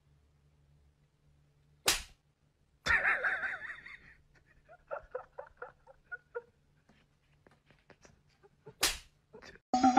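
Kitten and adult cat sparring: a short hissing burst followed by a run of short squeaky calls, set between two sharp snaps. A cat's meow over music starts just before the end.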